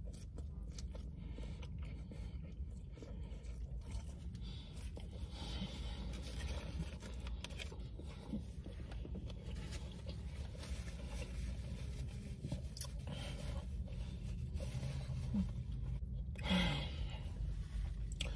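A person chewing a mouthful of soft wrap with lettuce, giving faint, scattered mouth and crunching sounds over a steady low hum. There is a short, louder sound near the end.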